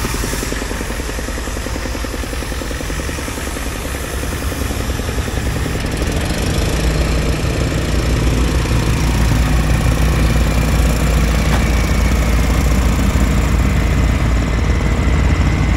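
Ford Super Duty truck engine working under load as it tows a heavy truck in low-range four-wheel drive, its deep running note growing louder and heavier about five to eight seconds in as the pull takes up.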